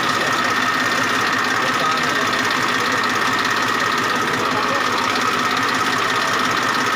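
Massey Ferguson 1035 DI tractor's three-cylinder diesel engine idling steadily.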